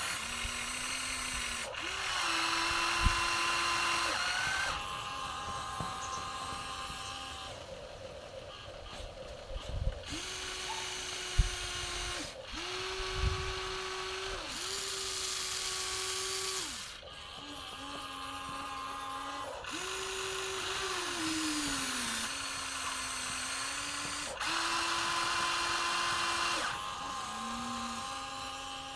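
Small electric gear motors of a Huina 1953 RC excavator whining in runs of one to three seconds, each run at a different pitch as the machine switches movements, some winding down with a falling whine. A few sharp knocks come between the runs.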